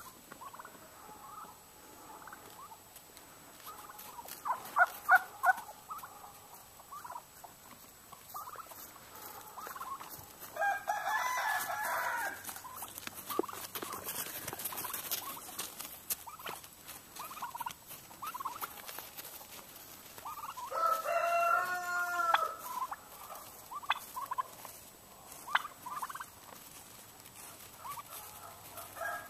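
Domestic turkeys gobbling: two longer rattling gobbles about a third and about two-thirds of the way through, with shorter calls in between.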